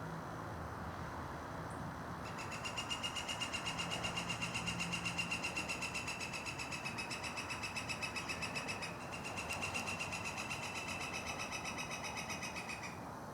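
A songbird giving a long, rapid, evenly pulsed trill on one high pitch. It starts about two seconds in, breaks for a moment about two-thirds of the way through, then carries on until just before the end.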